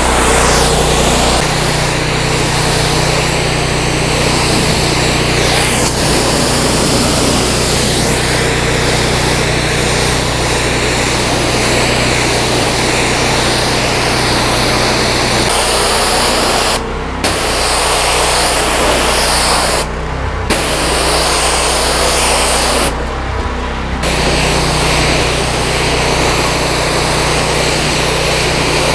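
Gas-engine belt-drive pressure washer (15 hp Powerease engine driving an AR pump) running, with the steady hiss of its high-pressure water spray. The spray cuts out briefly three times in the second half while the engine keeps running, as the gun's trigger is let go and squeezed again.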